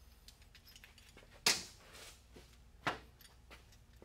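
Metal hand tools clanking against a leaf spring and the workbench: two sharp clanks about a second and a half apart, with faint small clicks between.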